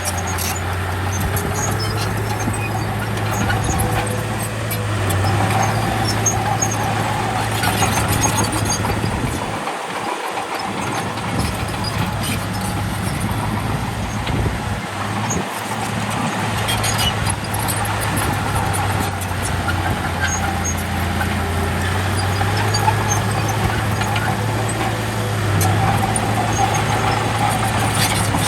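Bulldozer's diesel engine running steadily, with a constant low engine note and a steady higher whine above it; the low note drops out briefly about ten seconds in and again around fifteen seconds.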